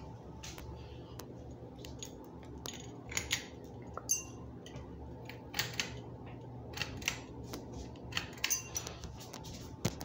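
Hampton Bay Huntington III ceiling fan humming steadily, while its frosted glass light shades are handled and clink and knock against the light kit a dozen or so times.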